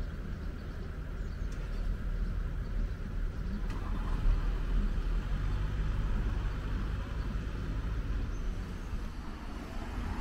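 Vehicle noise: a steady low engine rumble.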